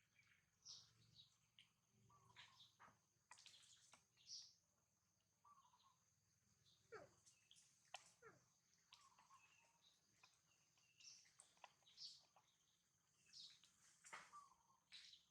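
Faint scattered animal chirps and clicks over a steady high thin tone, with two falling squeaks about seven and eight and a half seconds in.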